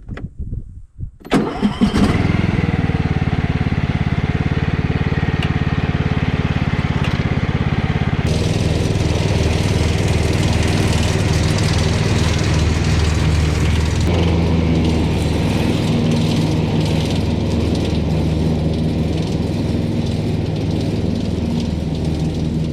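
Cub Cadet XT1 garden tractor engine cranking and catching about a second and a half in, then running steadily. Its sound shifts abruptly twice, about 8 and 14 seconds in.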